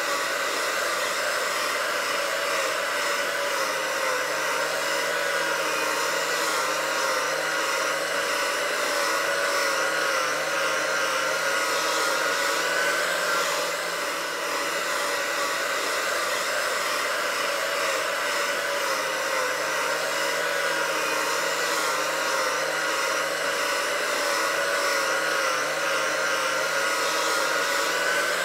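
Right angle grinder running at full speed with a Norton Bear-Tex high strength non-woven disc pressed onto carbon steel, scrubbing off heavy rust and hard scale. It is a steady motor whine with a slight waver and a small dip in level about halfway.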